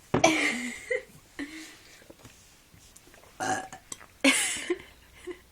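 A series of forced burps, the longest and loudest right at the start, then shorter ones with another strong burp a little after four seconds in.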